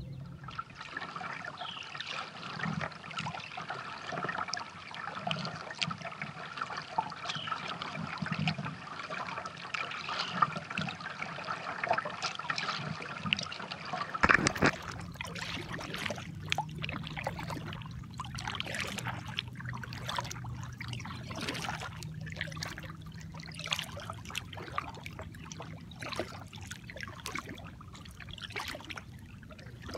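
Water trickling and lapping against a kayak, then, after a sudden knock about halfway through, a kayak paddle splashing and dripping stroke after stroke.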